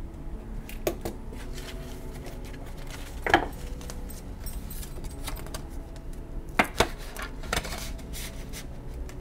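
Paper banknotes rustling and flicking as a stack of cash is handled and slid into a translucent envelope, with a few short crisp rustles.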